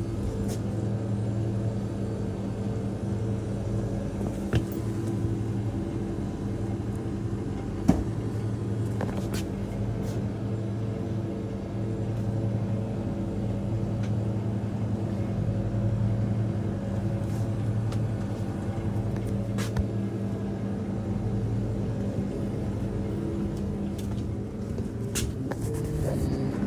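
Steady low electrical hum of shop refrigeration, the drinks chillers' motors running, with a few sharp clicks.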